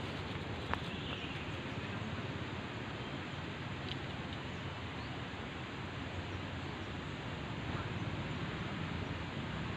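Steady outdoor background noise with no clear single source, broken by one short sharp click about a second in.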